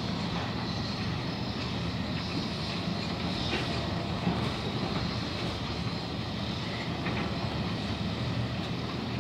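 Steady low rumbling background noise with a faint hum, unchanging and without distinct events.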